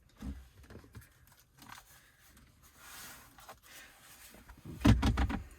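Hands handling the freshly drilled plastic dash trim: small clicks and scrapes, a brief soft hiss around the middle, and a louder knock near the end.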